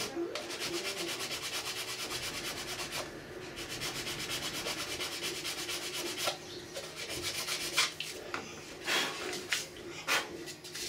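A very coarse sanding file rubbed quickly back and forth on a 3D-printed ABS plastic part, smoothing down a welded crack repair. The even rasping strokes run for about six seconds, then give way to a few separate, sharper scrapes.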